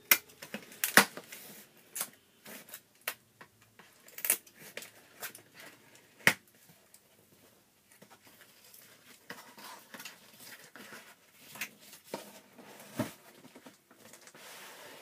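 A cardboard shipping box being opened by hand: a scatter of sharp clicks, scrapes and tearing as the packing tape is cut and pulled, loudest in the first half, then softer rubbing and knocks as the box is shifted and tilted.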